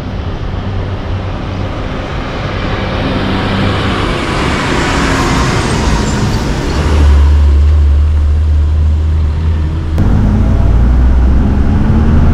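Road and traffic noise from a moving bus on a rough, dusty road: a steady engine drone and tyre noise, with a large truck swelling past about five seconds in. A deeper engine hum comes in from about seven seconds.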